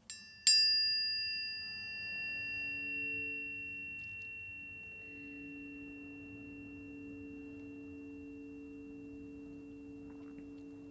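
Planetary tuning forks for Venus and Mercury struck, first lightly, then firmly about half a second in with a bright metallic ping. They ring on as a steady chord of pure tones that fades slowly, with a gentle waver in the lower notes.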